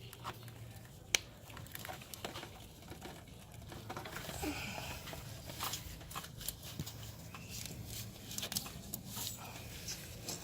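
Hands working the belts onto the engine pulleys: scattered small clicks and rustles, with one sharp click about a second in.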